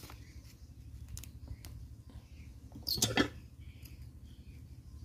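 Small clicks and scratches of 3 mm steel wire cable being bent and twisted by hand into a snare loop, with a louder brief scrape about three seconds in.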